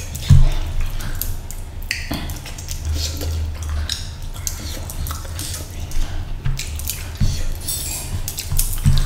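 Close-up eating by hand: fingers squishing and mixing rice and fish curry on a tray, with wet chewing and lip-smacking in quick, irregular clicks, over a low steady hum.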